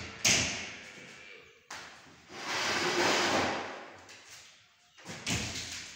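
Wooden wardrobe cabinet doors being shut: a sharp knock just after the start, the loudest sound, and another before the middle. Then about two seconds of a rough rushing scrape, and a further knock near the end.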